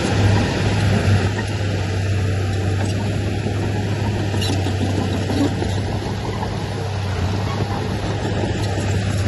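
Diesel engine of heavy earthmoving machinery running steadily, a strong low drone.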